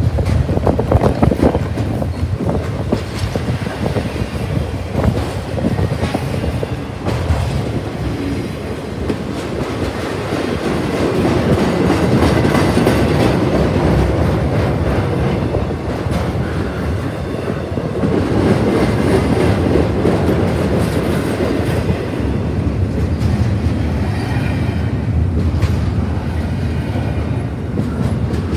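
Double-stack intermodal freight cars rolling past at track side: a loud, steady rumble of steel wheels on the rails that swells and eases as the cars go by.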